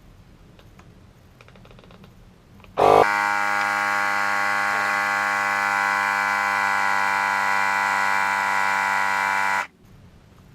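Milwaukee M12 cordless compact inflator running: a loud, steady buzz that starts suddenly about three seconds in and cuts off sharply about seven seconds later. It is pumping up a Segway miniPRO tire to push its not-yet-seated bead out onto the rim.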